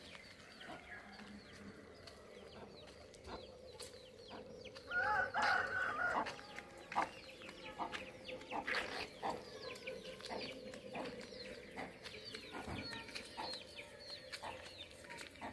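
Outdoor animal calls: a louder, wavering, drawn-out call about five seconds in, with many short chirping calls scattered around it.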